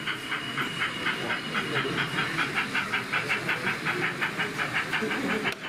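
Model steam locomotive's sound chuffing in a quick, even beat of about five or six chuffs a second, with a thin steady high tone over the first two seconds.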